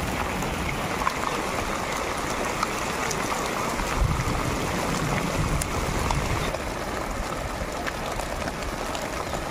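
Outdoor field ambience of steady wind noise on the microphone, with low rumbling gusts about four to six seconds in.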